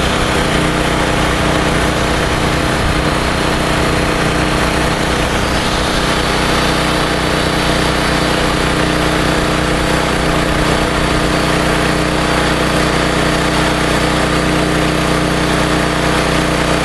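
Makita 12-inch electric chainsaw running steadily, with a constant motor whine.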